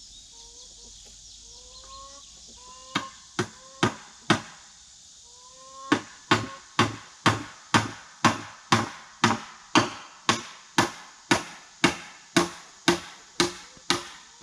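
Hammer driving nails through boards into oak posts: four blows a few seconds in, then a steady run of blows at about two a second.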